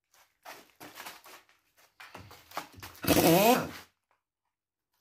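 Small clicks and rattles of a tool being handled and fitted to a bolt, then, about three seconds in, a pneumatic impact wrench runs in one loud burst of about a second, its pitch rising, on the bolts of an engine's oil pan.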